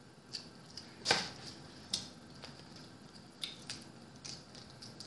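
Cooked blue crab shell being cracked and picked apart by hand: scattered sharp cracks and clicks, the loudest about a second in.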